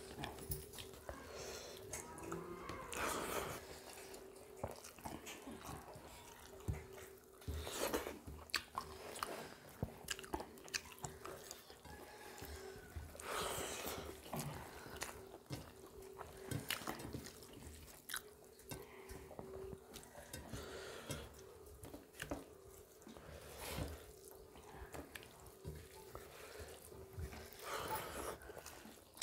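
Two people eating rice and chicken-spinach curry with their hands from steel plates: soft wet chewing and the squish of rice being mixed by hand, with scattered small clicks. A faint steady hum runs underneath.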